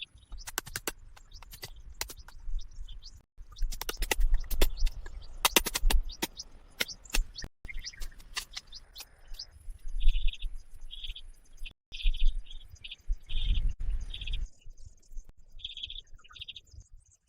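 Birds chirping in short repeated calls, over many sharp clicks and knocks and a low rumble.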